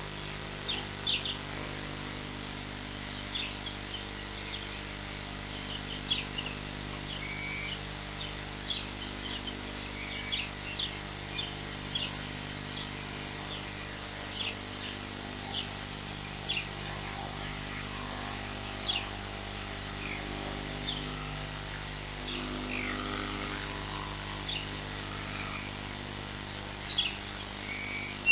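Birds calling outdoors: short, sharp chirps repeating every second or so, over a steady low hum.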